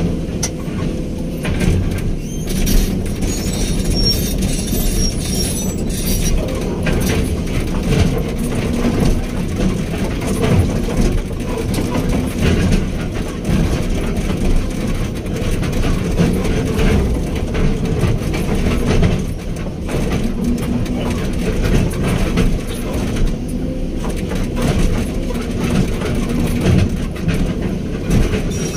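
Hydraulic excavator's diesel engine running steadily under load, with a faint high squeal from about three to six seconds in.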